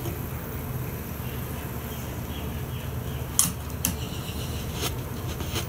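A few sharp clicks from a plastic push-button fishing reel being handled, over a steady low hum. The loudest click comes about three and a half seconds in, and a few lighter ones follow.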